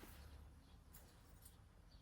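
Near silence: faint room tone with a couple of faint high ticks.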